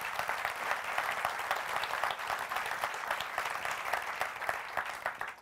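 Audience applauding: dense, steady clapping from many people that dies away at the end.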